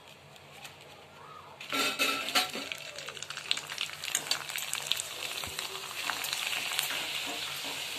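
Nachni (ragi) papad deep-frying in hot oil in a steel kadhai: fairly quiet at first, then about two seconds in a sudden loud sizzling with sharp crackles as a papad goes into the oil, settling into steady sizzling.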